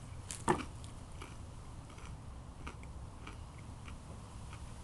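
A person chewing food, with a couple of sharp crunches about half a second in, then faint scattered clicks over a steady low hum.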